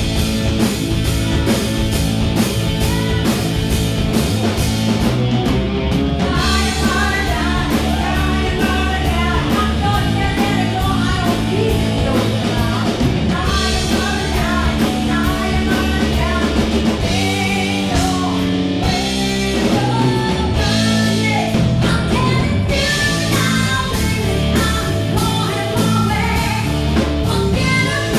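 Live rock band playing: electric guitar, bass guitar and drum kit, with a female lead singer whose voice comes in about six seconds in and carries on over the band.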